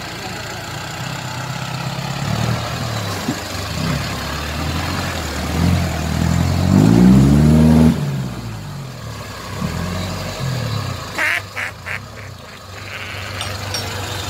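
Toyota Land Cruiser hardtop's engine revving up and down as it drives through deep mud, climbing to its loudest about seven seconds in and then easing back. Near the end, a quick run of about five short high-pitched sounds.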